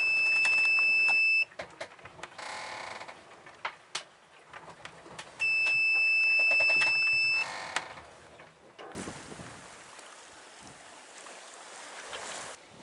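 AIS collision alarm beeping: two long, steady high-pitched electronic tones of about two seconds each, the second about six seconds after the first. It warns of a cargo ship on a close approach, its closest point of approach under half a nautical mile.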